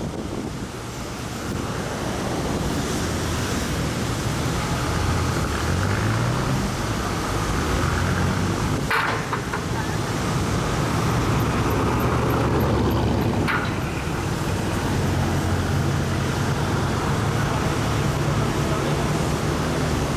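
Street traffic: car and motorbike engines passing, their note rising and falling over a steady hum of traffic, with two brief sharp sounds about nine and thirteen seconds in.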